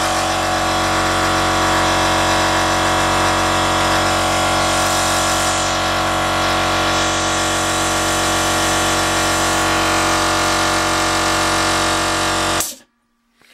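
Air compressor motor running with a loud, steady hum, then switching off abruptly about a second before the end.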